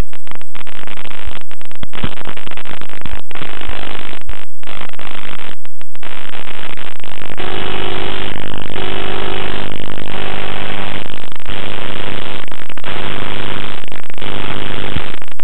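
Loud, harsh static-like noise at full recording level. It cuts out abruptly several times in the first six seconds, and from about seven seconds on, steady tones sit underneath it.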